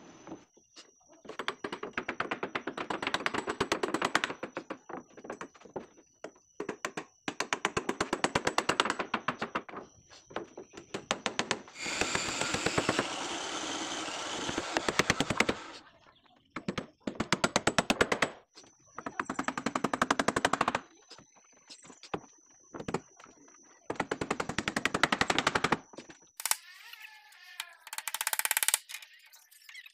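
Woodworking on a wooden boat hull: bursts of a few seconds each of rapid, evenly spaced knocking, machine-like in its speed, with short pauses between them.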